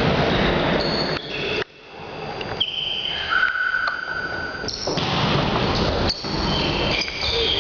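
Sports-hall ambience during an indoor volleyball game: a steady echoing hall noise with several short high squeaks. The sound drops out sharply about a second and a half in, then builds back up.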